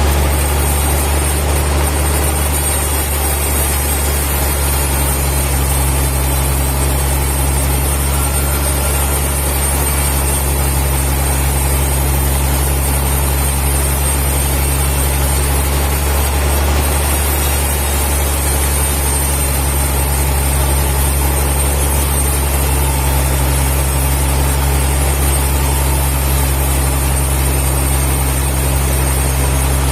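Heavy machinery running steadily with a deep, unchanging hum, no cut or strike standing out.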